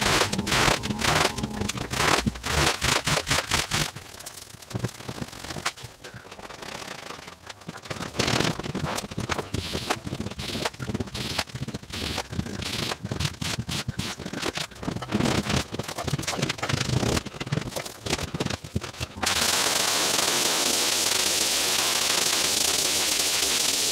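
A rapid run of wet scraping and squeegee strokes over a waterlogged rug and the vinyl floor liner. About 19 seconds in it changes to the steady hiss of a pressure-washer spray on the rug.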